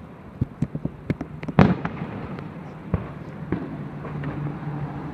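Fireworks going off: a run of sharp pops and crackles, with a loud bang about a second and a half in and a few more scattered bangs after.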